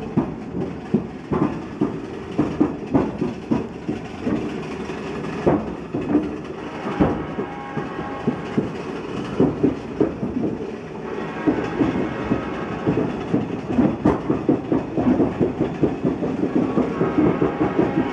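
A railroad turntable rotating with a rider aboard, its steel bridge clanking and rattling irregularly as it moves. A faint higher whine joins after about eleven seconds.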